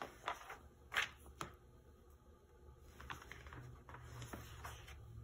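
Pages of an old magazine being turned by hand: several short paper rustles and swishes, the loudest about a second in.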